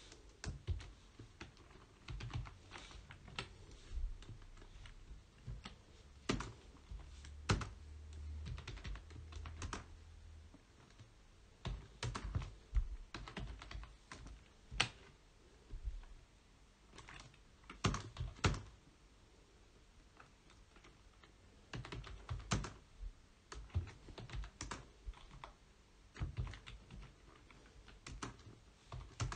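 Computer keyboard typing: irregular runs of keystrokes broken by short pauses.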